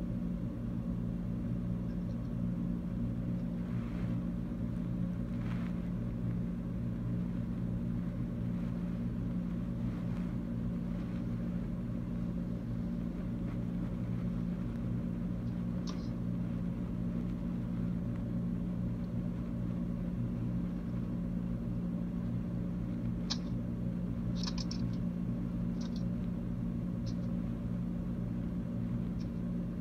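A steady low hum made of several even tones, with a few faint clicks and taps scattered through, most of them in a cluster about 23 to 27 seconds in.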